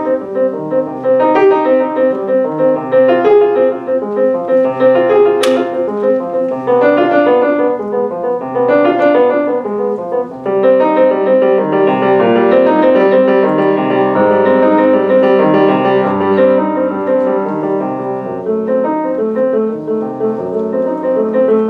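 Grand piano playing a chorale in three-four time, chords moving phrase by phrase with short breaks between phrases.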